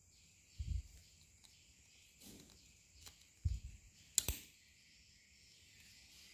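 Steel scissors cutting thin PVC pipe, with one sharp snip about four seconds in, and a couple of dull knocks from the pipe piece being handled.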